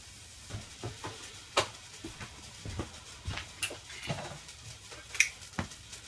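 Cheap travel immersion heater element running dry with no water, crackling and ticking irregularly as its coil heats toward red heat; it has no overheat protection. The ticks start about half a second in, with two sharper cracks among them.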